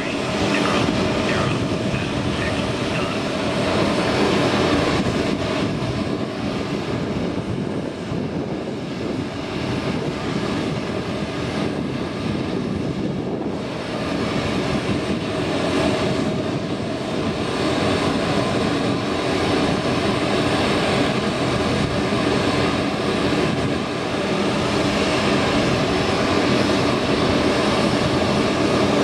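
Steady aircraft turbine noise on an airport ramp: a continuous rush with several held tones, swelling and easing a little but never stopping.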